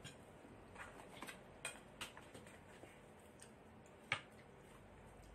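Quiet, scattered small clicks and mouth sounds of someone chewing food, with one sharper tap about four seconds in.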